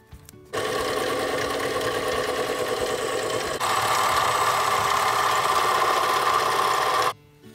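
Harbor Freight mini metal lathe running with a steady motor and gear whine while a tool faces the end of an aluminium part. It starts abruptly about half a second in, grows louder and higher-toned about halfway through, and stops abruptly shortly before the end.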